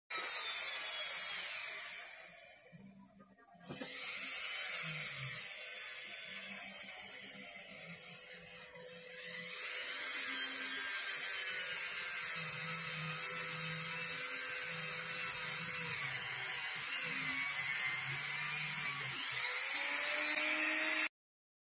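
Small handheld rotary tool with a felt polishing wheel running with a high-pitched whine, polishing a circular saw's armature commutator. It winds down and dies away about two to three seconds in, speeds back up, dips briefly near nine seconds, then runs steadily until it cuts off suddenly near the end.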